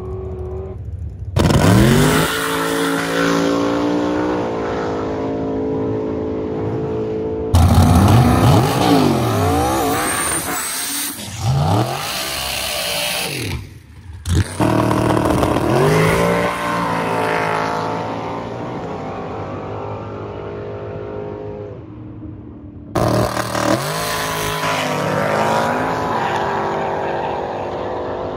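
Drag race car engines at full throttle, their pitch climbing again and again as the cars launch and run down the strip. The sound comes in several separate takes that cut in and out suddenly.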